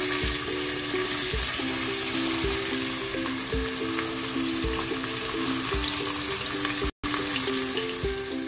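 Chopped onions sizzling in hot oil in a pressure cooker, a steady frying hiss that starts as they hit the oil. Soft background music runs underneath.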